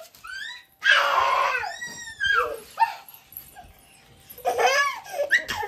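Young children shrieking and squealing in rough play: a loud scream about a second in, then high yelping squeals that rise and fall, with more squeals near the end.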